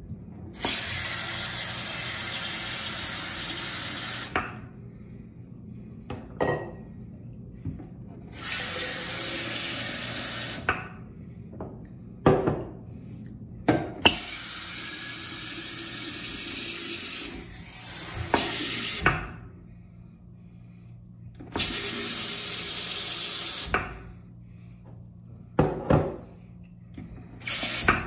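Hot water running from a sink tap into glass containers of dish soap and olive oil, filling them and raising suds, in four spells of a few seconds each. Short knocks of glass being handled come between the runs.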